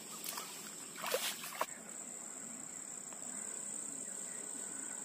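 Steady high-pitched insect chirring, with a few brief sharp knocks or rustles about a second in.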